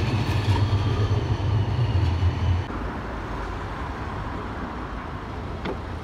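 Light-rail tram running on street tracks: a heavy low rumble with a thin high whine above it, cut off abruptly about two and a half seconds in. After that, a quieter steady street background.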